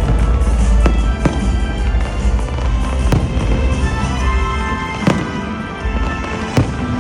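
Fireworks going off, with a sharp bang every second or two at uneven intervals, over music with steady tones and a heavy bass.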